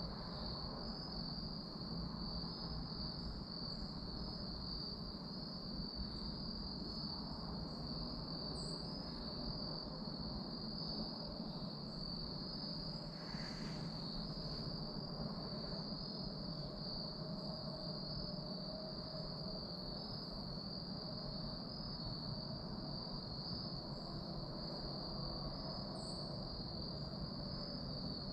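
Steady insect chorus, a continuous high-pitched trill typical of crickets, over a faint low rumble, with a few faint short high chirps.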